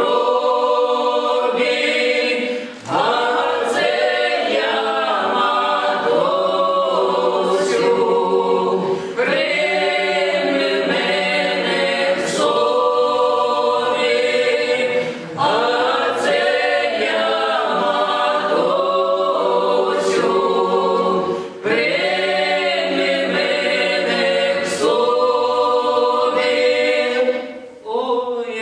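Mixed women's and men's folk ensemble singing a traditional Russian psalm a cappella in harmony, in long phrases with a short break for breath about every six seconds.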